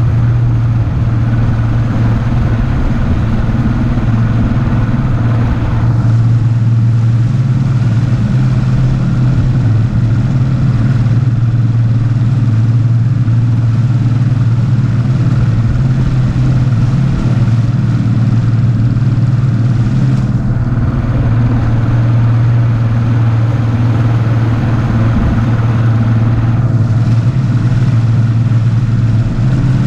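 Mercury Optimax 200 HP two-stroke V6 outboard running steadily at cruising speed. The boat is under way, and the low drone holds an even pitch and level throughout.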